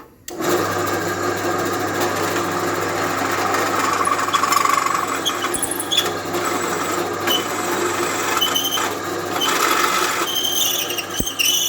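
Bench drill press starting abruptly and running, its motor humming steadily while the bit cuts, with brief high-pitched whining near the end.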